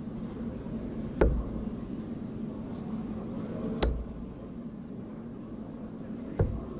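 Three steel-tip darts striking a Unicorn Eclipse HD2 bristle dartboard one after another, each a short sharp thud about two and a half seconds apart, over a steady hum.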